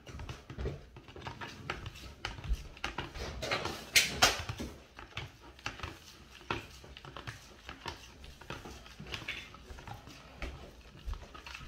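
A utensil stirring a runny egg, milk and cinnamon mixture in a plastic bowl, making irregular scrapes and light clicks, with one louder, sharper sound about four seconds in.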